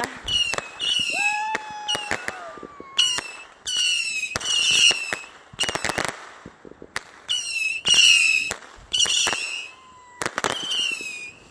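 Fireworks going off: short, high whistles that fall slightly in pitch, recurring every half second to a second, mixed with sharp bangs and crackles. About a second in, a lower whistle glides down, and a cluster of loud bangs comes around the middle.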